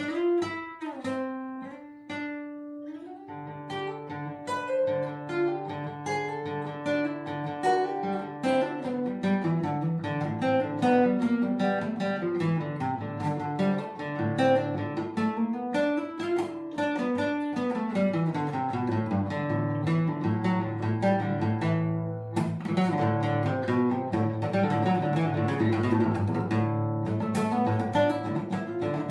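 Acoustic guitar playing: quick runs of plucked notes climbing and falling over held low bass notes.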